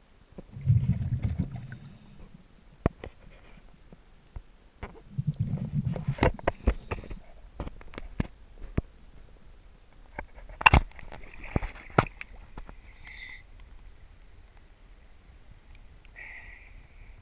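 Muffled water movement heard through a waterproof camera housing held underwater and brought up to the surface: two low rumbles, about a second in and again around five seconds, with many sharp clicks and knocks, the loudest just before halfway through, then a light hiss of water near the end.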